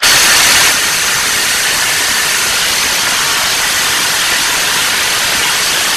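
Bosch GDX 18V-200 cordless impact wrench hammering without a break as it works to break loose a large, heavily torqued bolt. It starts abruptly and keeps up a loud, even run of rapid impacts.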